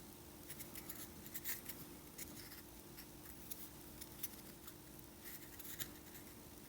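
Faint, irregular small clicks and scratches of tweezers and fingers handling tiny components on a circuit board, over a steady low hum.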